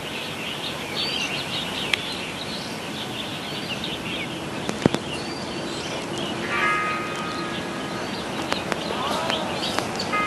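Small birds chirping repeatedly over a steady outdoor background hiss, with a few sharp clicks.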